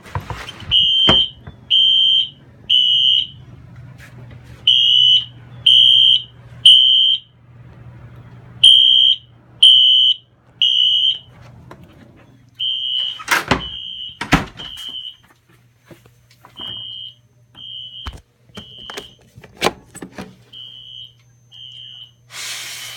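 Fire alarm sounder on an addressable fire alarm system in alarm, beeping a high tone in groups of three with a pause between groups (temporal-3 evacuation pattern). The system was set off by a smoke/heat detector. A couple of sharp clicks come a little past halfway, and the beeps are softer in the second half.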